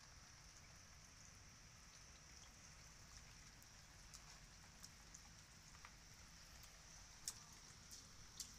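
Faint light rain falling on a wet concrete terrace: a steady soft hiss with scattered drop taps, a few sharper taps near the end.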